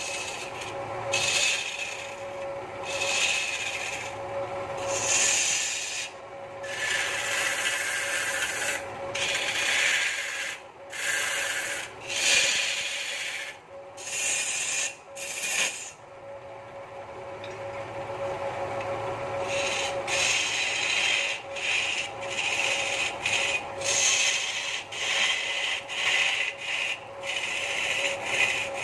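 A hand-held tool scraping against a large wooden stool blank as it spins on a wood lathe, in repeated strokes with short breaks, over the lathe's steady hum. The scraping eases off for a few seconds about halfway through, then comes back.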